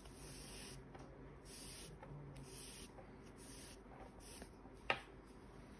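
Faint rubbing of 3 mm cotton cord sliding through crocheted stitches as the yarn tail is drawn through, in about five short strokes roughly a second apart, with a single sharp click about five seconds in.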